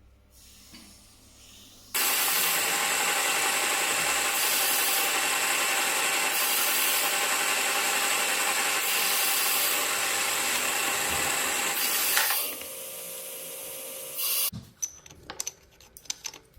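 A power tool starts about two seconds in and runs loud and steady under load for about ten seconds. It eases to a lighter level and cuts off about fourteen seconds in, followed by a few small knocks and clicks of handling.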